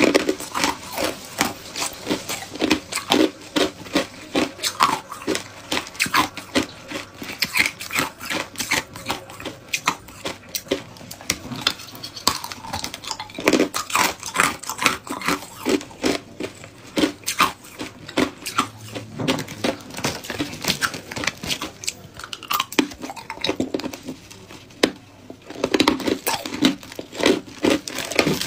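Hard ice chunks crunched between the teeth: rapid, irregular cracks and crunches, with a short lull near the end before the chewing starts again.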